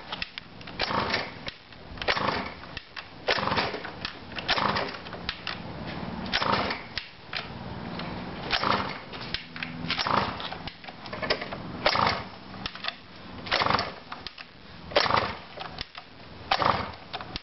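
Pocket bike's small two-stroke engine being cranked over again and again with the choke closed, a burst about every second and a half, turning over without catching.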